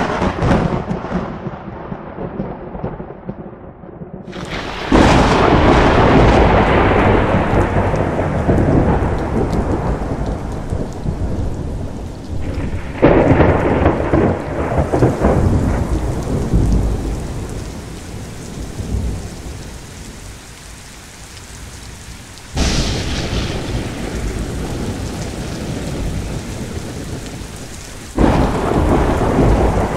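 Rain falling with low rolling thunder, a steady rushing hiss over a deep rumble. The loudness jumps suddenly several times, at about 5, 13, 22 and 28 seconds in.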